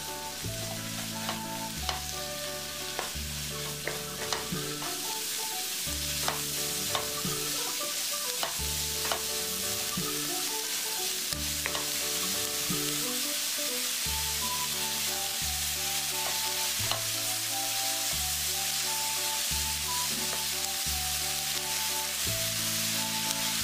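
Carrot, onion and garlic chives being stir-fried in oil in a nonstick pan: a steady sizzle, with a wooden spatula scraping and tapping the pan.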